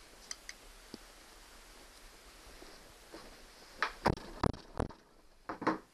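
A mallet knocking on a Honda 9.9 hp outboard powerhead, about six sharp blows in quick succession in the last two seconds after a few faint clicks. It is driving a slotted screwdriver into the seam to split the powerhead apart.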